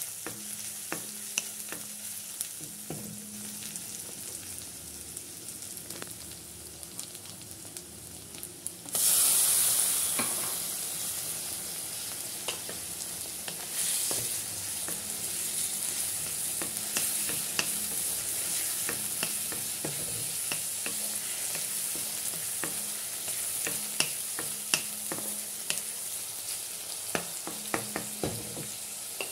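Onions, garlic and green chillies sizzling in hot oil in a kadai, stirred with a metal spatula that clicks and scrapes against the pan. About nine seconds in, the sizzle jumps suddenly louder as chopped tomatoes go into the oil, then settles back to a steady frying sizzle with stirring.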